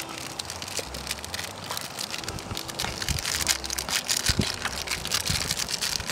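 Metal spoon stirring and scraping instant noodles in an aluminium pot on a portable stove, a dense run of clinks, scrapes and crackling that grows busier in the second half.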